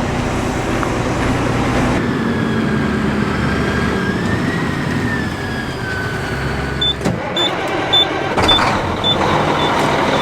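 A heavy vehicle's engine running steadily, with a thin whine coming in about two seconds in that rises and then falls. Near the end comes a series of short, high, evenly spaced beeps, roughly every half second, like a warning alarm.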